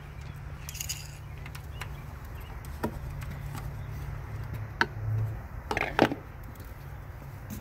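A few small plastic clicks and knocks as the dipstick is pushed back into its tube and the oil filler cap is twisted off a Mazda engine, the sharpest click about six seconds in, over a steady low hum.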